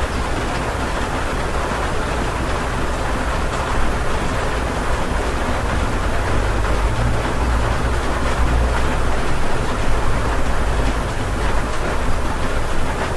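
Steady heavy rain heard from inside a house, an even hiss with a deep low rumble that grows stronger in the middle.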